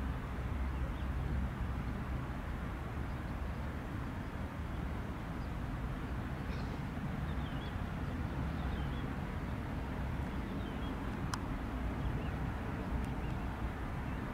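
Distant steady rumble of a Cessna Citation CJ2+ business jet's twin turbofan engines at taxi power as it turns onto the runway, with a few faint bird chirps.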